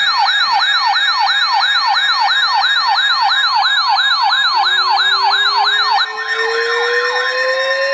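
Electronic siren sounding a fast yelp, its pitch sweeping up and down about four times a second. About six seconds in the yelp stops and gives way to steady tones, and a slowly rising wail that began a little earlier carries on under them.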